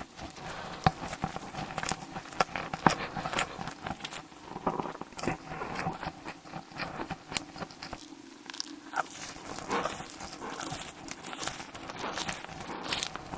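Close-miked eating sounds: a person biting and chewing food, with many small, irregular wet clicks and crackles.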